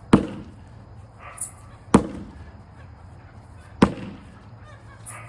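Sledgehammer striking an old tire three times, about two seconds apart, each a sharp hit with a short fading tail.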